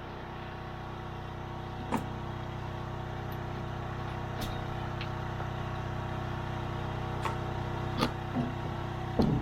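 An engine running steadily at idle, with a few short knocks and clatters scattered through, the loudest near the end.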